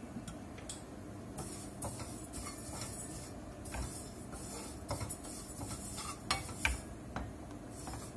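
Wooden spoons stirring a simmering sauce in a stainless steel saucepan and sesame seeds in a frying pan, with scattered knocks and scrapes of the spoons against the pans over a steady low hiss. The loudest knocks come a little past six seconds in.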